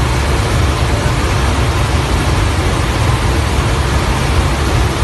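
Steady, loud, deep drone of a military transport aircraft's engines and rushing air, heard from inside its cargo cabin.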